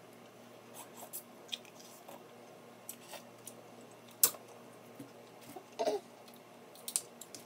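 Boiled snow crab leg shells being cracked and snapped apart by hand: scattered sharp clicks and crackles, with one loud crack about four seconds in.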